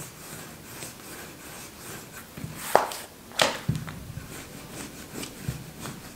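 Rolling pin rolling out pasta dough on a silicone baking mat: soft rubbing with a few light knocks, the two loudest a little before halfway, about half a second apart.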